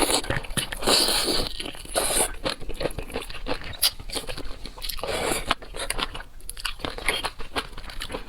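Close-miked eating: a person biting into and chewing seafood, with crunching and many small wet clicks throughout.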